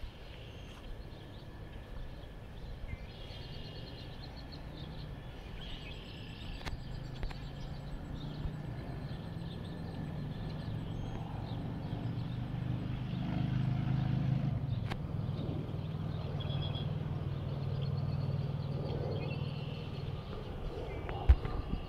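A low engine rumble that grows louder through the middle and stays up near the end, with scattered short bird chirps over it.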